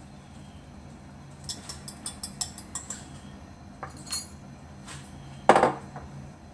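A metal spoon clinking against a glass mixing bowl while scooping pancake batter: a quick run of light clinks, one more a little later, then a louder, short clunk near the end.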